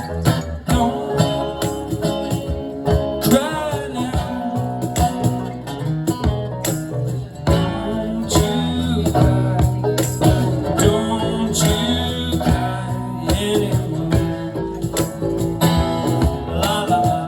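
A live band playing a passage between sung lines: guitars strummed and picked over sustained low notes, with tambourine and other percussion hits.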